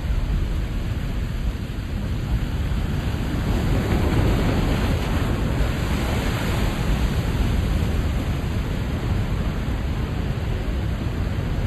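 Ocean surf on a rocky tide-pool shore: a continuous low rush of waves that swells as a wave breaks and washes in about four seconds in, then eases after about seven seconds.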